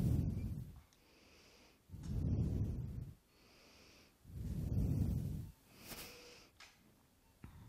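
A person breathing close to a microphone: slow, regular breaths, each a low blowing puff lasting about a second and recurring about every two and a half seconds, with a short click about six seconds in.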